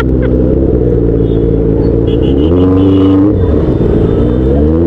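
Motorcycle engine running while riding in traffic, revving up about halfway through, holding briefly, then easing off.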